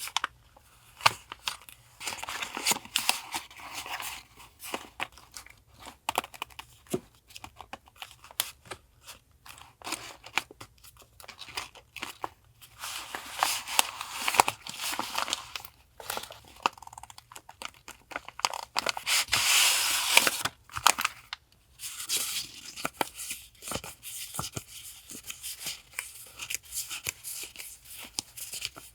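Paper and packaging being handled at close range: rustling, crinkling and tearing, broken by many small taps and clicks. A longer, louder stretch of rustling comes about twenty seconds in.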